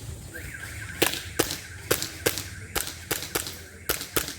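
Airsoft pistol firing a quick string of about nine sharp shots, starting about a second in, spaced irregularly a third to half a second apart as a shooter engages targets on a timed stage.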